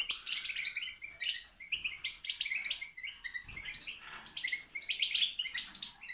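Caged European goldfinches chirping and twittering, many short high calls overlapping without a break.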